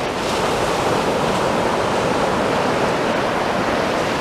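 Sea surf washing onto a sandy beach: a steady, loud rush of breaking waves.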